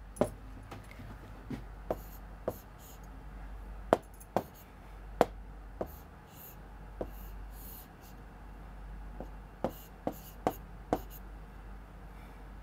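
Hand writing and drawing with a pen or marker: a dozen or so sharp, irregular taps of the tip against the writing surface, between short, scratchy strokes.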